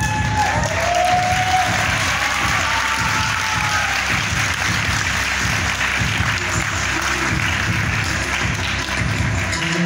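Audience applauding over the show's music.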